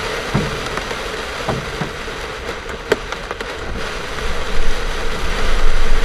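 Hail and heavy rain drumming on a car's windshield and roof, heard from inside the cabin, with a few sharp single stones cracking against the glass. A low, uneven rumble grows louder in the last two seconds.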